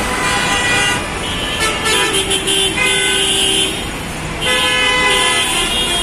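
Bus and car horns honking over one another in jammed traffic, several horn tones overlapping almost without a break, over the steady rumble of engines. The honking briefly thins about four seconds in.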